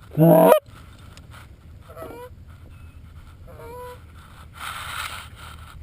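Goose honking: one loud, close honk just after the start, then fainter, shorter honks about two and three and a half seconds in. A brief soft rustle follows around five seconds in.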